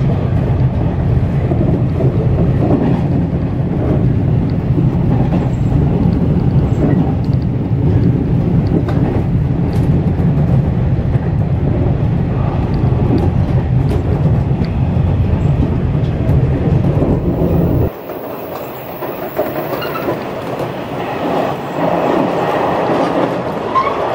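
A 415 series electric train running, heard from inside its leading cab: a steady low rumble of wheels on rail with faint scattered clicks. About three-quarters of the way through the low rumble drops away suddenly and the running noise becomes quieter.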